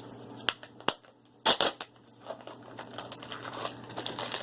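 Plastic packaging of a Num Noms mystery toy being opened by hand: two sharp clicks, then a loud snap about a second and a half in, followed by crinkling as the package is pulled apart.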